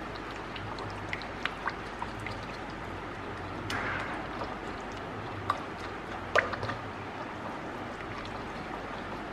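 Wire whisk beating a thick peanut butter sauce in a ceramic bowl, whisked until smooth and free of lumps: a steady wet swishing, with the whisk clicking against the bowl now and then, sharpest about five and a half and six and a half seconds in.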